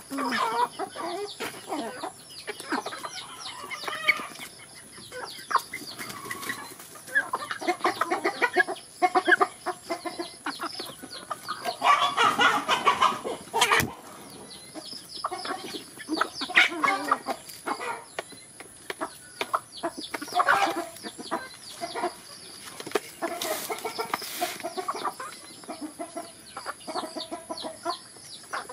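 A flock of chickens, hens and roosters, clucking as they feed, with many short sharp taps in between. The clucking gets louder and busier about twelve seconds in.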